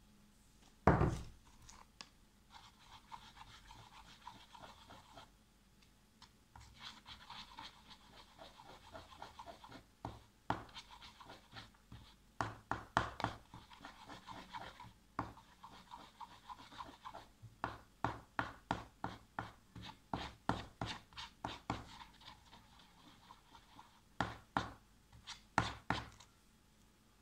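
Metal teaspoon stirring glue and shaving foam in a plastic tub, scraping the sides and clicking against the plastic in quick irregular runs. A single loud thump about a second in.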